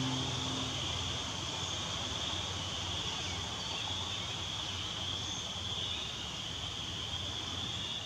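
A steady high-pitched chorus of calling insects, wavering slightly, over a soft outdoor hiss. The last note of an acoustic guitar fades out within the first second.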